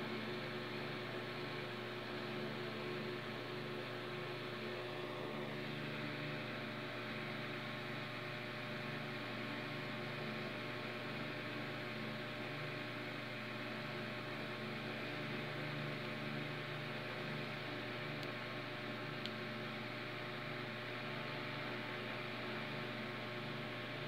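A steady electrical hum with a hiss over it, unchanging throughout, with one faint click about three quarters of the way through.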